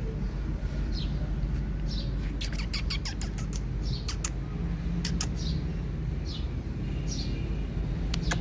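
A bird chirping over and over: short, high, falling chirps about once a second, over a steady low hum. A quick run of sharp clicks comes about a third of the way in, with a few more later.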